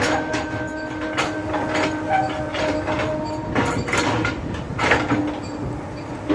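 JCB 3DX backhoe loader running under load, a steady diesel and hydraulic whine with irregular metallic knocks and clanks.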